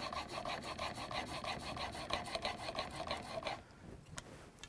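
Plane iron in a honing jig rubbed back and forth on an extra-extra-fine diamond sharpening plate, quick even rasping strokes about five a second, with pressure on one corner to camber the edge. The strokes stop about three and a half seconds in, followed by a light click.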